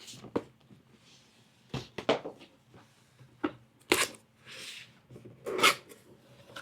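Handling noises as a boxed puzzle's packaging is opened: a scatter of sharp knocks and clicks, with a short rustling slide a little past the middle.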